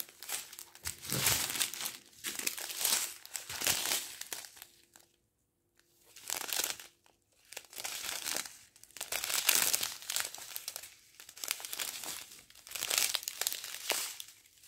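Crinkling of small plastic packets of square diamond-painting drills being handled, in irregular bursts with a short pause about five seconds in.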